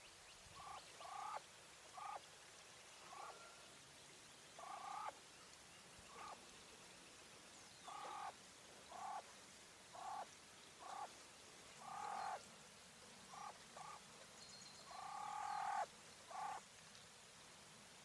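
English White coturnix quail hen calling: a string of short, pitched calls at irregular intervals, roughly one a second, with a few longer drawn-out calls, the longest and loudest near the end.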